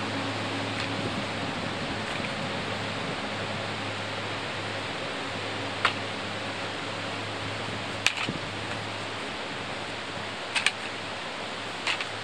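A few sharp clicks and knocks of a folding camp chair's frame poles being seated into the corner pockets of its fabric seat, over a steady rushing background noise with a faint low hum.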